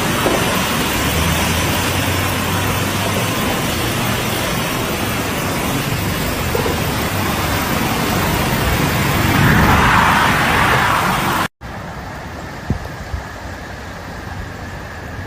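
Loud steady rushing noise with a faint low hum underneath, cut off suddenly about eleven and a half seconds in; after the cut a quieter steady noise with two short clicks.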